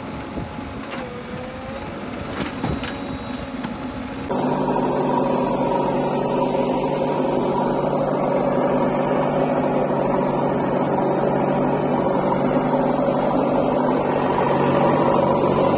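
Heavy diesel engine running at a steady, unchanging speed, jumping louder at a cut about four seconds in. Before that it is quieter, with a few short rising and falling squeaks over it.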